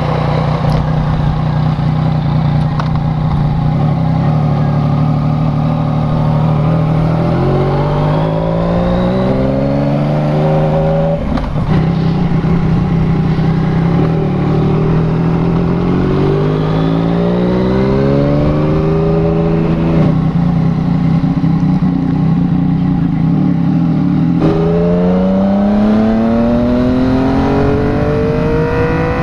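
Yamaha MT-09 three-cylinder engine through an aftermarket replica Akrapovic exhaust. It runs steadily at first, then pulls away, its note rising several times and dropping back at each upshift as the bike accelerates.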